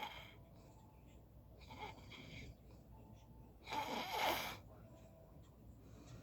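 A person snoring, with noisy breaths every couple of seconds; the loudest and harshest comes just before four seconds in and lasts about a second.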